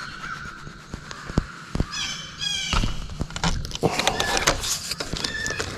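A crow caws once about two seconds in, over a steady high tone in the first second, followed by a run of sharp clicks and rustling.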